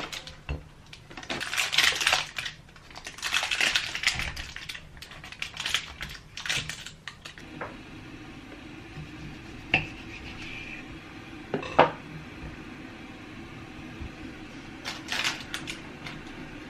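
Kitchenware clattering: dishes, pans and utensils knocked and handled, with a few sharp clinks. A steady low hum starts about seven and a half seconds in and runs under the rest.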